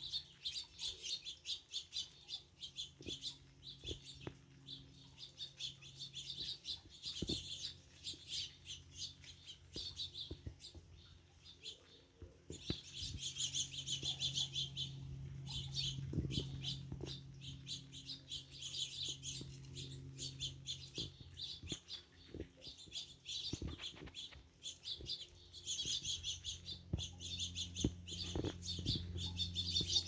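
Small finches chirping and twittering around backyard feeders, a dense run of quick high chirps that grows busiest about halfway through and again near the end. A faint steady low hum runs underneath.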